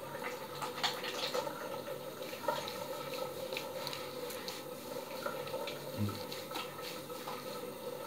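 Shaving gel being rubbed over a freshly shaved scalp by hand: soft wet rubbing with small sticky clicks, over a steady hiss. A short low thump comes about six seconds in.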